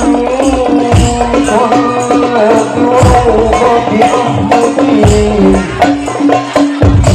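Amplified devotional music from a stage group over loudspeakers: a sung, wavering melody over steady drum beats and tambourine-like jingles.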